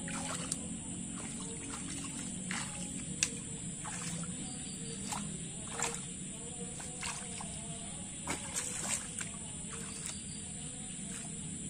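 Hands splashing and sloshing in shallow muddy water while groping for fish by hand, with several sharp splashes spread through it, over a steady high-pitched drone.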